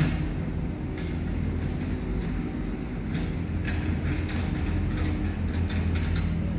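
Steady low mechanical rumble and hum, with faint scattered ticks over it.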